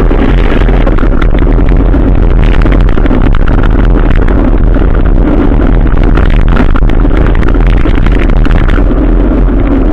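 Adventure motorcycle being ridden in the rain: the engine runs under a loud, steady rush of wind and rain noise on the microphone, with a heavy low rumble throughout.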